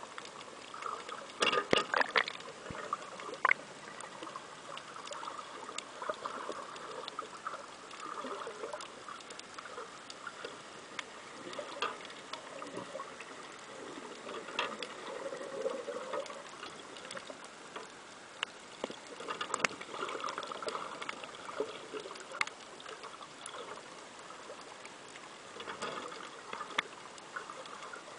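Underwater sound picked up by a submerged camera: a steady, muffled wash of water with many scattered sharp clicks and crackles, a burst of louder clicks about two seconds in.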